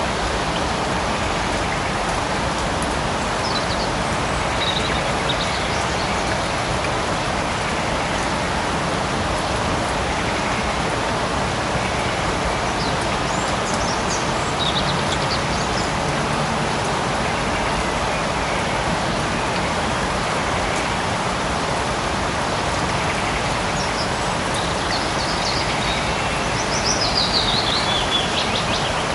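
Steady light rain falling in a forest, an even hiss. Faint bird chirps come through now and then, with a short falling run of chirps near the end.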